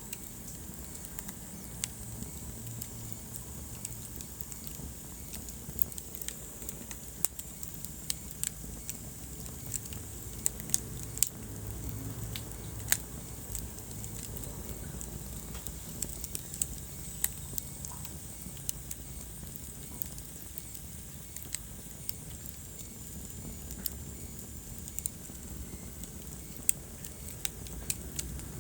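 Wood fire crackling: irregular sharp pops and snaps, a few louder than the rest, over a low steady rumble of burning logs.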